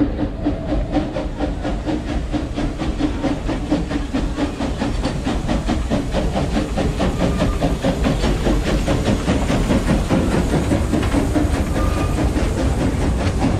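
Frisco Silver Dollar Line No. 504, a narrow-gauge steam locomotive, working past with its passenger train: a fast, even run of exhaust beats with steam hissing, over the rumble of the coaches on the rails.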